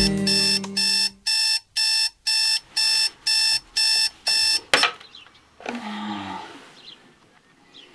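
Digital bedside alarm clock beeping in short, evenly spaced bursts, about two a second. The beeping stops with a sharp click about five seconds in as a hand slaps the button.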